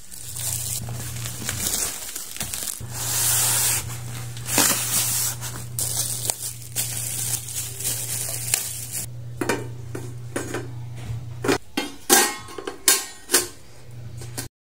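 Plastic film rustling and crinkling as it is pulled off a wrapped pan. From about nine and a half seconds in comes a string of sharp metal clinks and clanks as a round metal grill pan is handled and set on an infrared cooker.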